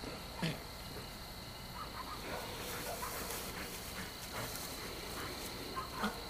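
Black and tan coonhound worrying a freshly killed raccoon in grass, giving two short grunts that drop in pitch, one about half a second in and one near the end.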